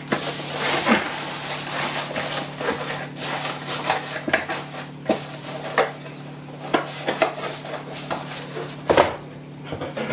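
Irregular rustling of packaging with light clicks and knocks of hand tools being handled and set down during unboxing.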